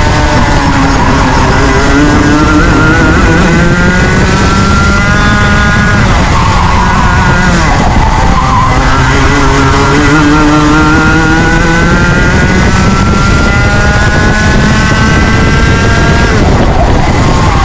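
Junior Rotax two-stroke kart engine at racing revs, its pitch rising steadily as it accelerates, dropping off about six seconds in, then climbing again through a long pull before falling away near the end.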